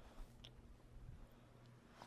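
Near silence: faint steady hum of room tone, with one small click about half a second in.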